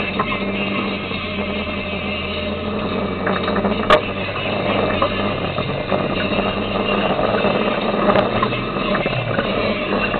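Jeep CJ engine running under load as it climbs a steep dirt hill, with a steady low hum throughout. One sharp knock comes about four seconds in.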